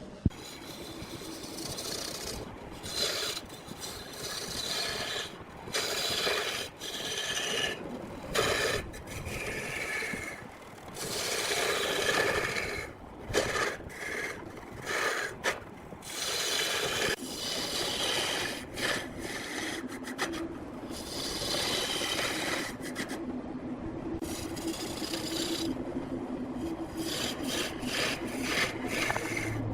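Woodturning on a large wood lathe: a tool scraping and cutting the spinning wood in repeated passes of a second or two, with short breaks between them.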